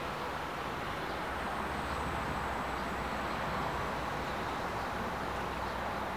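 A mini bike's 168cc single-cylinder four-stroke engine running steadily at a distance as the bike rides away.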